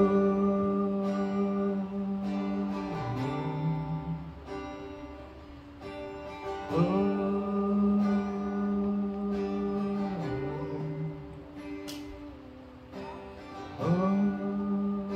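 Wordless singing: a voice swoops up into a long held note, dips briefly lower, and repeats the swoop about every seven seconds, three times, over gently strummed acoustic guitar.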